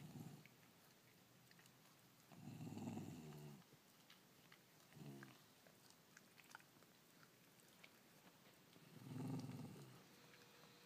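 A dog growling low while giving licking kisses: a long growl about two seconds in, a short one near five seconds and another near nine seconds, with faint clicks between.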